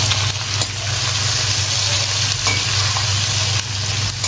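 Potatoes and spice-stuffed baby eggplants sizzling in hot mustard oil in a stainless steel kadai, stirred with a slotted steel spoon that clicks against the pan a few times, over a steady low hum.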